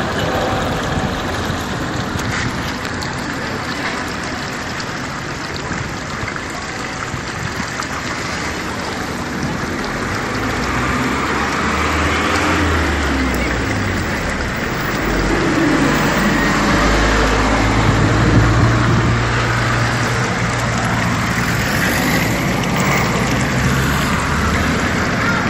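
Drinking water running out of a pipe left open onto the ground, a steady splashing hiss. A low steady hum joins in about midway and carries on until near the end.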